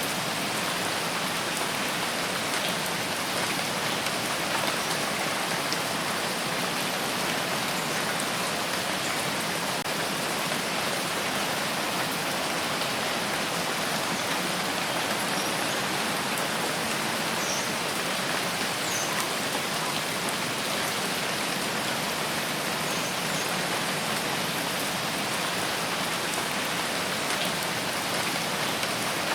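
Steady rain falling, an even dense patter with no breaks.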